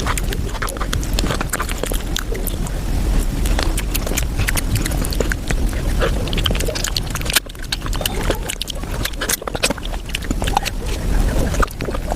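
Close-miked eating sounds sped up to five times normal speed: rapid chewing, smacking and slurping of soft, juicy mango desserts run together into a dense chatter of clicks, with a brief break about seven seconds in.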